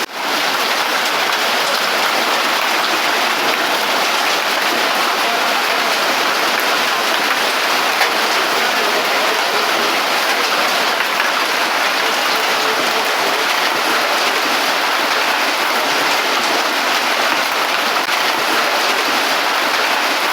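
Heavy rain pouring down steadily, a dense, even hiss without a break.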